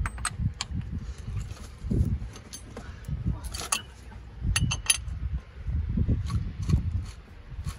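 Steel hand tools on a truck's front hub: a breaker bar and socket being worked on the axle nut, with several sharp metallic clinks, two close together about five seconds in, over an uneven low rumble.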